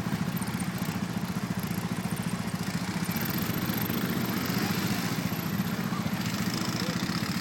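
ATV engine running steadily with a fast, even putter, holding a constant speed with no revving.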